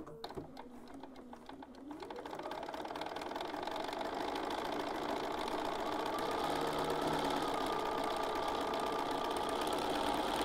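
Bernina 570 QE computerized sewing machine stitching a seam: after a click it speeds up over the first two seconds, then runs steadily at speed.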